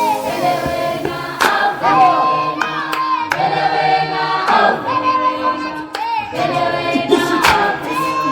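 Gospel song: a choir of voices singing long held notes that slide between pitches, over a beat with sharp percussion hits.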